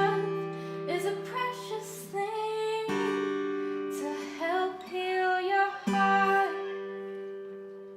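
A woman singing over a strummed acoustic guitar. Chords are struck about three seconds apart, and the final chord, about six seconds in, is left to ring and fades away as the song ends.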